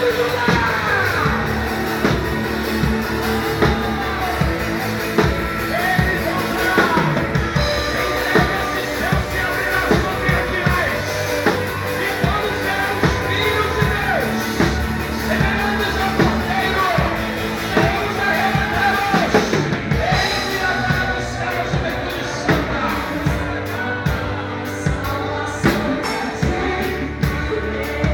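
Live worship band playing: a drum kit keeping a steady beat under other instruments, with voices singing over it.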